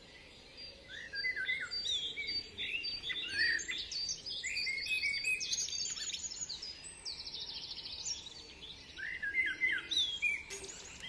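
Several small birds chirping and singing, with short calls overlapping and a quick trill about seven seconds in.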